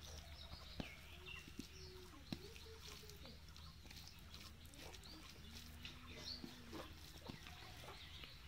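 Faint rural background: small birds chirping, and twice a drawn-out animal call held about a second at one pitch, with a few faint clicks.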